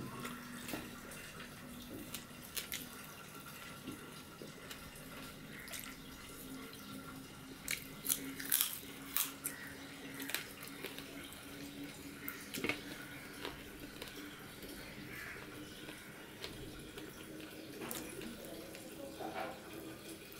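Close-up eating sounds of a person eating rice, fish and chicken curry by hand: wet chewing, biting and lip smacks, heard as scattered sharp clicks that are loudest about eight to nine seconds in, over a faint steady hum.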